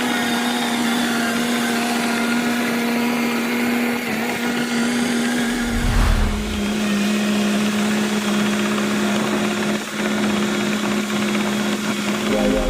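Diesel engine of heavy earthmoving equipment running steadily. Its pitch steps down slightly about halfway through, with a brief low thump.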